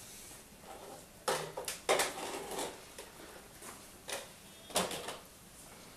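A hand tool clicking and snapping as it strips the insulation from the end of a wire, with four sharp snaps at uneven gaps between softer handling noise.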